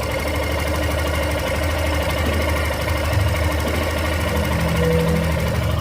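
Yamaha Factor 150's single-cylinder four-stroke engine running steadily at a constant speed, with the strange small noise that the owner likens to a distant bell, a repeated 'vim, vim, vim', and cannot identify.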